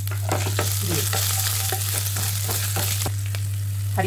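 Crushed garlic and whole spices sizzling in hot mustard oil, with a wooden spatula scraping and knocking against the pan as it stirs. A steady low hum runs underneath.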